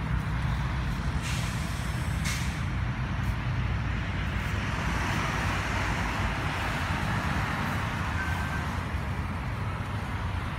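Background road traffic: a steady low engine rumble, with a swell of rushing noise a few seconds in as a vehicle goes by.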